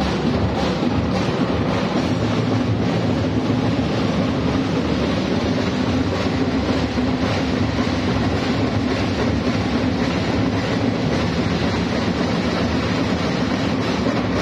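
Ati-atihan drum band playing loud, dense, continuous drumming, with many drums beaten together in an unbroken rhythm.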